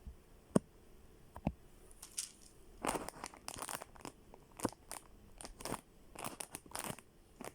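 Plastic ball-puzzle cube being handled and turned: a couple of sharp clicks, then from about two seconds in a run of short rattling, scraping bursts as the puzzle is worked.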